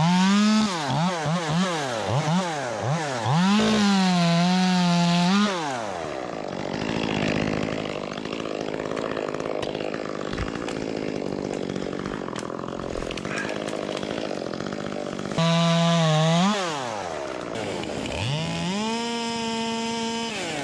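Ported Echo 25T top-handle chainsaw, a small two-stroke, blipped up and down several times and held at high revs, then bogged and rough while cutting through wood for about ten seconds. Near the end it revs freely to a high pitch, drops back to idle, and winds up again.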